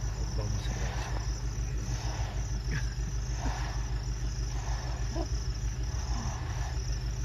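Insects chirping steadily in a fast pulsing high trill, over a steady low rumble.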